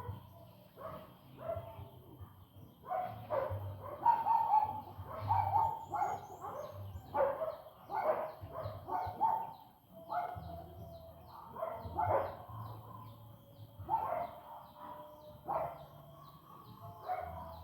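Goats bleating again and again, several calls overlapping, with a small bird chirping steadily at a fast even rate.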